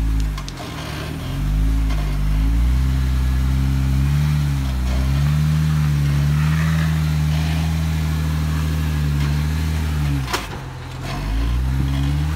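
Jeep Wrangler Rubicon's engine revving under load as it crawls up a rock ledge, its pitch rising and falling with the throttle. It eases off just after the start and again about ten seconds in, with a single sharp knock just before the second easing.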